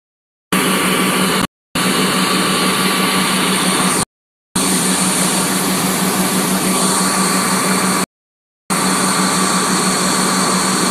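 Fire engine's engine running steadily at the pump, a loud continuous drone with no speech. The sound cuts out abruptly to silence three times.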